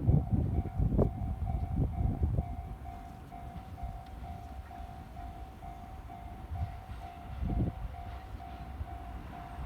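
JR West 207 series electric train, two sets coupled, passing over a level crossing: the wheels clunk over the rail joints, heaviest in the first two seconds and once more about seven and a half seconds in. Throughout, the crossing's warning alarm rings at about two strokes a second.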